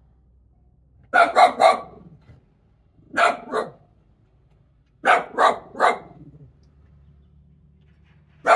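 A dog barking in quick bursts of two or three barks, four bursts about two seconds apart, the last starting near the end.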